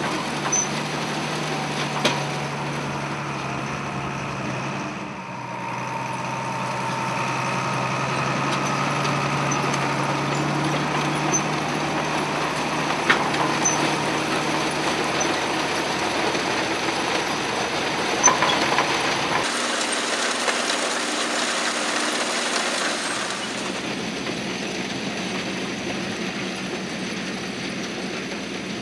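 Tractor engine running steadily while pulling a seed drill through the field, with a few sharp clicks and rattles. About two-thirds of the way through, the sound changes abruptly and the low engine hum drops away.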